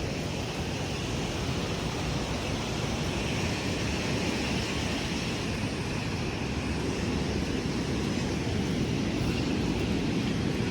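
Steady rush of ocean surf on a beach, with wind buffeting the microphone.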